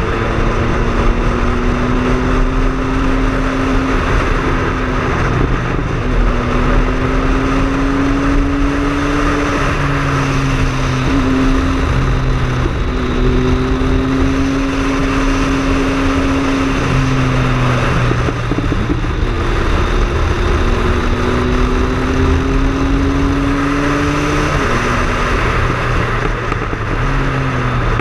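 Triumph Speed Triple's three-cylinder engine under way on the road. Its note climbs slowly and drops back about five times, over a steady rushing noise.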